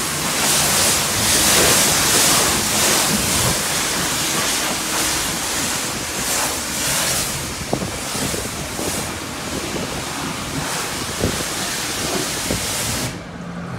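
High-pressure washer wand spraying water onto a car's body, a loud steady hiss that swells and fades as the spray moves, then cuts off suddenly near the end.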